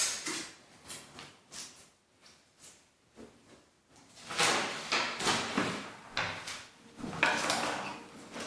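Paper sheets being handled and moved about, a run of short rustles and small knocks, sparse at first and busier from about halfway through.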